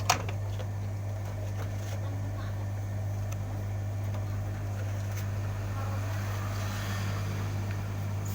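Electrolux washing machine running with a steady low hum, with one sharp click right at the start.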